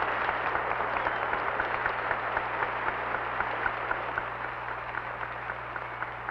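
A large outdoor crowd applauding, many hands clapping at once, the applause slowly dying down toward the end.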